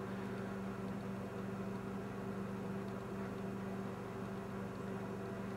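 Toaster oven heating at its full 1100-watt draw under PID control, giving off a steady low electrical buzz.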